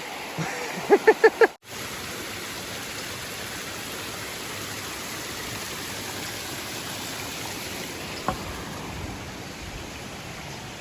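Steady rushing of a flowing stream. There is a short voice sound at the start, and a single sharp tap about eight seconds in.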